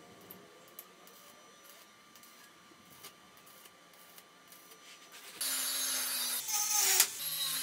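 Faint crackle of stick arc welding on thin steel tubing. About five seconds in, a cordless angle grinder starts up much louder and grinds the steel weld joints with a steady whine, with a sharp harsh bite about a second later.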